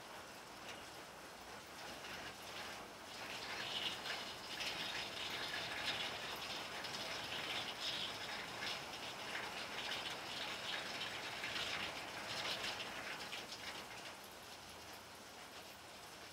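Rain falling on flat rooftops: a dense hiss of drops. It grows heavier about three seconds in and eases again near the end.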